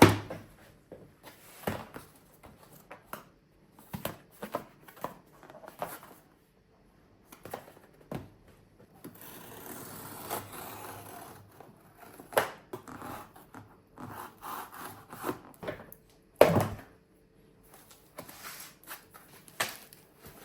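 A monitor light bar's box and packaging handled and opened: scattered clicks and rustles, a longer stretch of rubbing or tearing about nine to eleven seconds in, and a sharp knock about sixteen seconds in.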